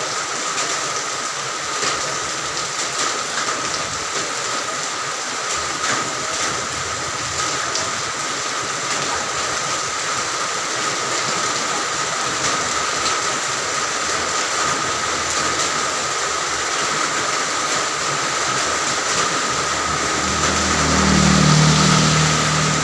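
Steady rain falling, a continuous hiss with scattered drop ticks. About twenty seconds in, a motor vehicle on the road passes with a low engine hum that swells and then eases.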